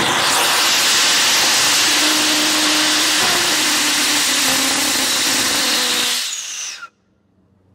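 Hybrid rocket motor burning paraffin wax fuel with gaseous oxygen, firing on a static test stand: a loud, steady rushing noise that holds for about seven seconds, then cuts off suddenly as the burn ends.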